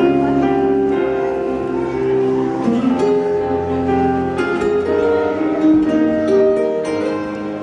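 Instrumental music: a melody of held notes moving from note to note, with plucked-string notes over it.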